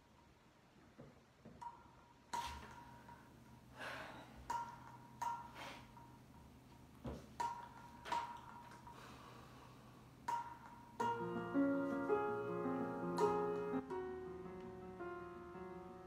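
Scattered sharp clicks and taps at uneven intervals, then about eleven seconds in, a piano-style keyboard intro of the rap beat starts playing slow sustained chords.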